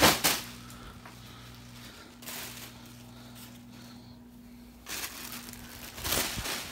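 A sharp pop right at the start, then scattered crinkling and rustling of plastic air-pillow packing, over the steady low hum of a ceiling fan.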